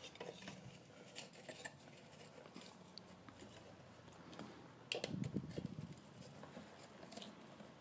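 Faint clicks and rustling of hands working wire and insulating sleeving through a metal lamp head, with a louder scuffle of handling about five seconds in.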